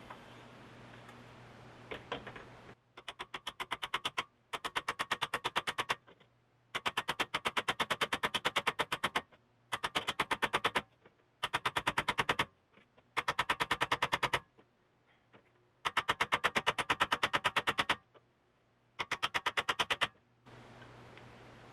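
Impact wrench hammering in eight bursts of one to two and a half seconds, each a fast, even run of sharp blows, with short pauses between them.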